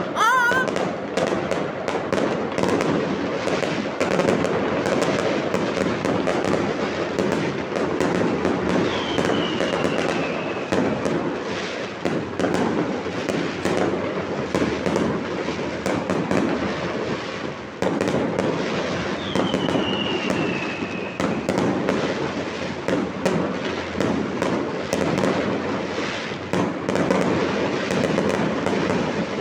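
Fireworks display going off in a dense, continuous barrage of bangs and crackles. Two short falling whistles cut through it, about ten seconds apart.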